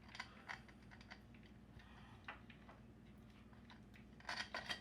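Faint, scattered metal clicks and taps of motorcycle primary-side parts being handled and fitted, with a quick run of louder clicks near the end, over a low steady hum.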